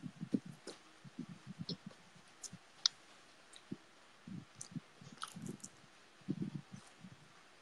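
Irregular soft low thuds and rustles with scattered sharp clicks, from hands moving, tapping and brushing against the body and table close to the phone's microphone while signing.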